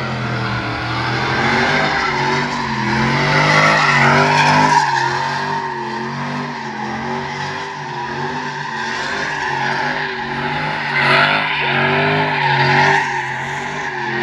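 Chevrolet Silverado pickup doing donuts: the engine revs up and down while the rear tyres squeal and skid on the concrete, loudest about four seconds in and again around eleven to thirteen seconds.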